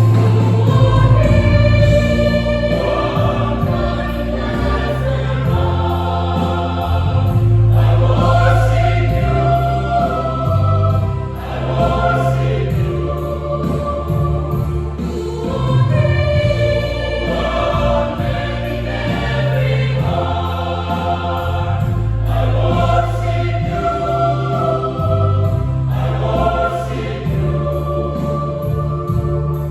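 Church choir singing a sacred song in harmony, with sustained low accompanying notes beneath the voices.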